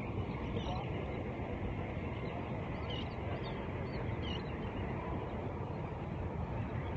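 Steady rush of wind on the microphone out on open water, with a few short, high bird chirps about half a second, three and four seconds in.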